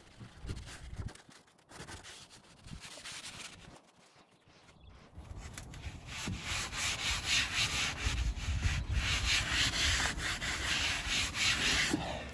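A hand rubbing and pressing new carpet down onto a glued car floor: light handling at first, then brisk, rapid scrubbing strokes from about five seconds in.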